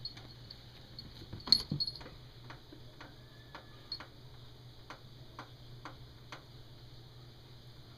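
Plastic teething ring knocked about by a playing kitten: irregular sharp clicks and taps, with a louder clatter of several knocks about a second and a half in, then single clicks spaced half a second to a second apart.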